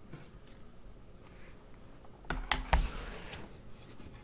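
Plastic DVD and Blu-ray cases being handled: light clicks early on, then a few sharper knocks and a dull thump about two and a half seconds in.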